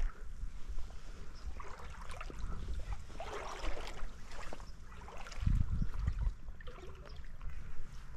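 Shallow creek water trickling and splashing, with irregular scuffs and clicks and a heavier low thump about five and a half seconds in.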